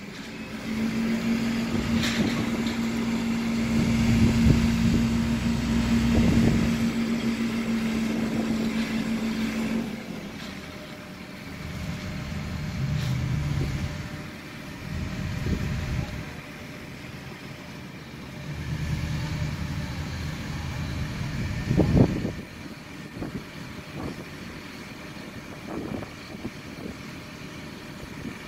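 Crane truck's engine running under load, with a steady whine held for about the first ten seconds, then settling to quieter, uneven running; a single sharp knock about twenty-two seconds in.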